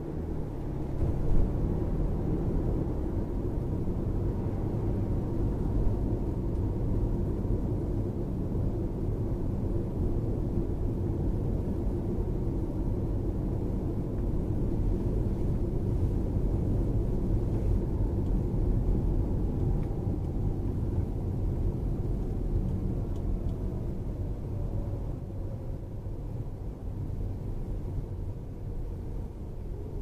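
In-cabin driving noise of a Lexus RX 450h hybrid SUV on the road: a steady low rumble of tyres and drivetrain that picks up about a second in, with a faint whine falling in pitch past the middle.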